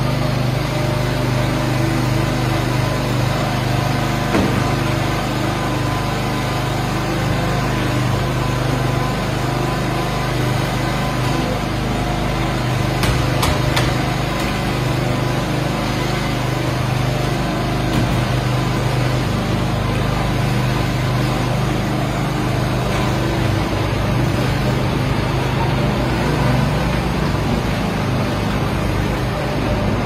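Small engine of construction equipment running steadily with a low, even drone. A couple of sharp knocks come about halfway through.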